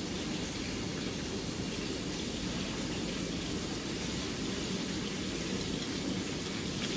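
Steady, even rushing noise, strongest in the low range, with no distinct clinks or bites standing out.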